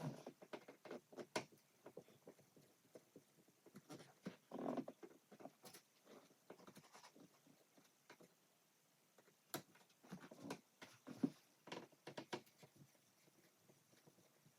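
Faint, scattered clicks, taps and light rattles from hand work on a plastic switch plate: screws being undone and small switch parts handled, with one sharper click about two-thirds of the way through.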